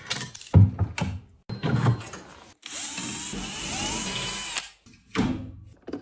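A few knocks and clatter of parts being handled, then a power drill runs for about two seconds with a whine that rises in pitch and stops abruptly, during the teardown of a washing machine.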